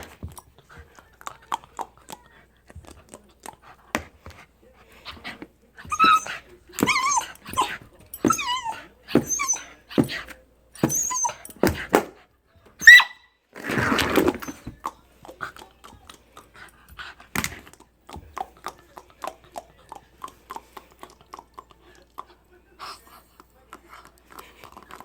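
A dog playing with a toy: scattered clicks and knocks throughout, a run of short vocal sounds in the middle, and one loud burst about halfway through.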